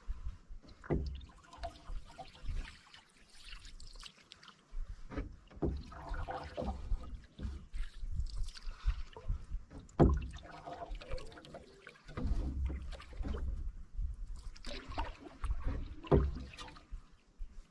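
A canoe being paddled: water splashing and trickling off the paddle, stroke after stroke, with a few sharp knocks about a second, ten seconds and sixteen seconds in.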